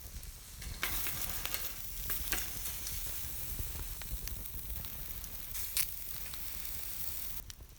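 Food frying in hot fat, sizzling, with a few sharp pops. The sizzle starts about a second in and stops shortly before the end.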